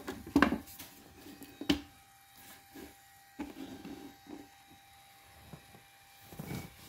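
Handling noise from the spot welder's heavy cables being picked up and moved: a few sharp clicks and knocks, the loudest about half a second and just under two seconds in, then lighter taps and rubbing. A faint steady hum runs under it all.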